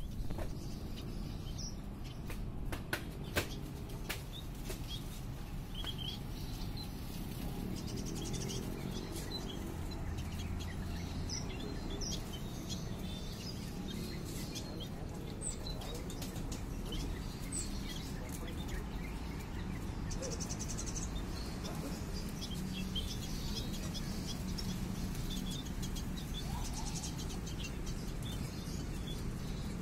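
Small finches, munias, chirping with short high calls scattered throughout, and wing flutters as they flit about. A few sharp clicks come two to four seconds in.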